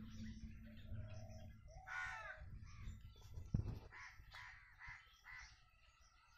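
Crows cawing, a few harsh calls: one clear call about two seconds in, then several shorter ones between about four and five and a half seconds. A single sharp knock comes about three and a half seconds in.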